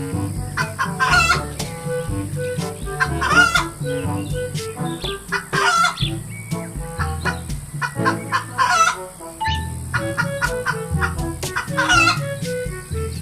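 Chicken calls, five short squawks spaced about two and a half seconds apart, over cheerful background music with a steady bass line.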